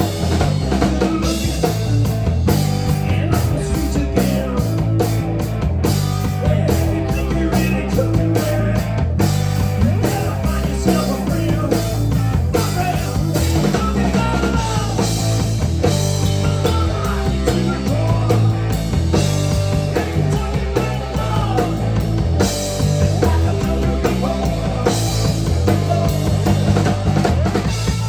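Live rock band playing: electric guitars and a drum kit in a steady full-band groove.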